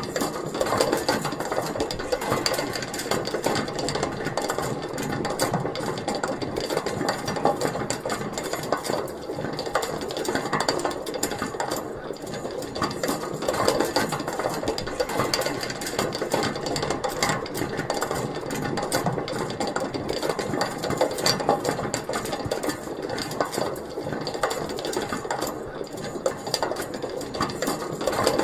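Metal pulley mechanism with a small wheel spinning, giving a steady, fast metallic rattling and clicking.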